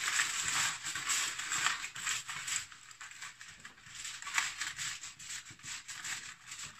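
Aluminum foil crinkling and crackling in quick, irregular rustles as it is pressed and folded down over the rim of a baking pan.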